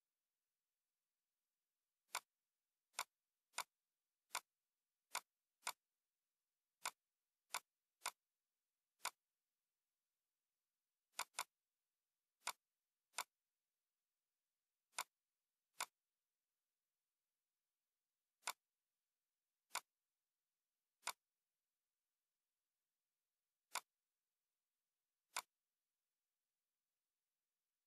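Computer mouse clicking: about twenty single sharp clicks at irregular intervals, with a quick double-click near the middle, and dead silence between them.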